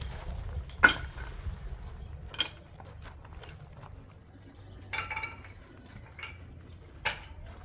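Dishes and cutlery clinking: about five separate knocks, the sharpest about a second in, and one about five seconds in that rings briefly.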